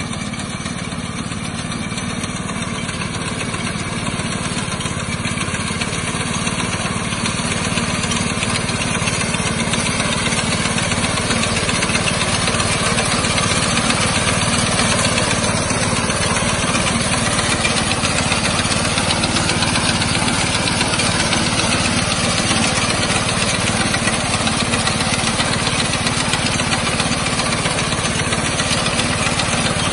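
Walk-behind paddy reaper's small four-stroke air-cooled engine, rated 7 hp, running steadily as the machine cuts through standing rice. It grows louder over the first ten seconds or so, then holds even.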